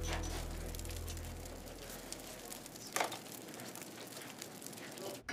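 Wood fire crackling on an open grill hearth, a steady crackling hiss with scattered pops, and a single sharp knock about three seconds in.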